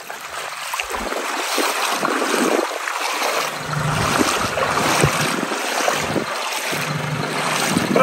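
Steady rushing of a fast glacial meltwater stream over rocks, with scattered small clicks and splashes.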